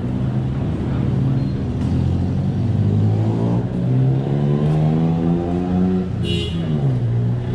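A motor vehicle's engine running and accelerating, its pitch climbing steadily for a few seconds, then dropping away about six seconds in.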